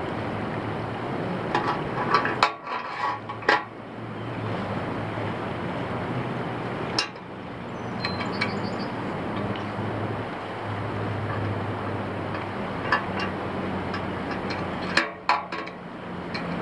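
Small metal hardware clinking and tapping against a hollow aluminium pole, in scattered sharp clinks: a cluster about two to three seconds in, a single one around seven seconds, and another cluster near the end, over a steady background noise.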